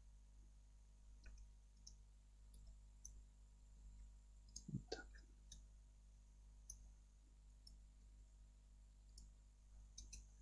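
Faint, scattered clicks of a computer mouse and keyboard, about a dozen spread through the stretch, with one soft thump a little before the middle over a near-silent background.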